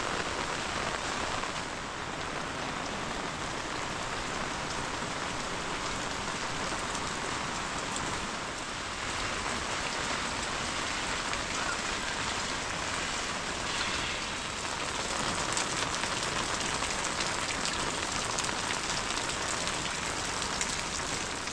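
Heavy rain falling steadily: a dense, even hiss made up of countless small drop ticks.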